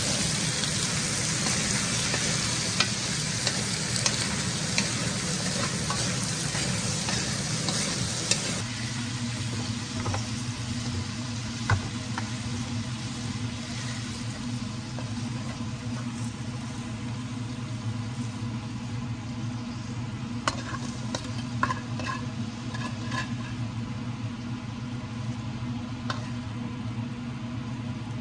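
Cubed potatoes and bell peppers sizzling in an aluminium wok as a wooden spatula stirs them. About eight seconds in, the sizzle drops sharply, and after that come the spatula's scattered scrapes and knocks against the pan as the vegetables are scooped into a bowl.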